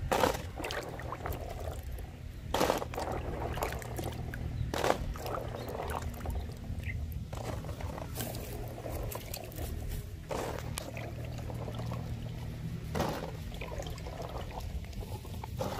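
Water splashing and dripping as handfuls of jujube fruit are stirred in a basin of water and lifted out, in several separate splashes with trickling between them.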